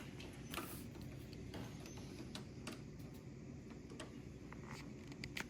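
Faint, scattered clicks and taps of plastic kit parts being handled and fitted together, about once or twice a second at irregular intervals.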